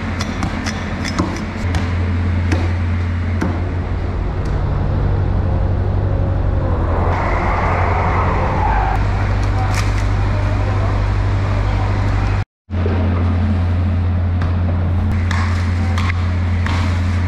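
Fish-market background noise: a steady low machine hum with scattered knocks and clatter and some distant voices. It cuts out completely for an instant about two-thirds of the way through.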